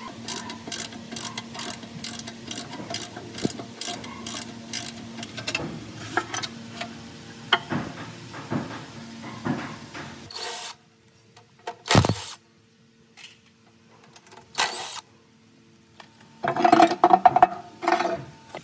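A power tool running with a regular clicking, cutting off about ten and a half seconds in, followed by a few separate knocks and a short burst of loud clatter near the end.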